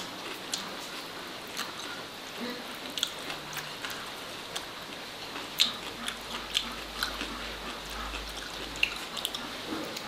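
Someone eating from a small bowl with chopsticks: irregular light clicks and taps of chopsticks and mouth, with chewing, over a steady low hiss.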